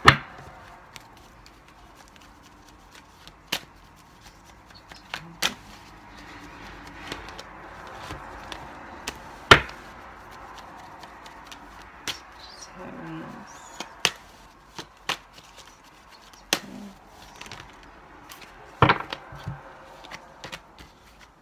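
Tarot cards being handled: a string of sharp taps and slaps as cards are knocked together and laid down on the table, with softer rustling of cards between them.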